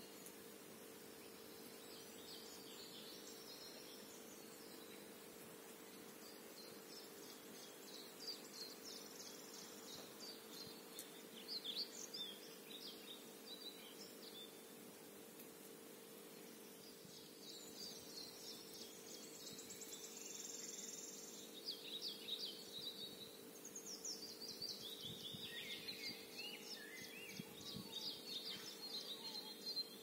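Songbirds singing and chirping, several overlapping songs of short, high phrases, with a fast trill about two-thirds of the way through. A faint steady low hum runs underneath.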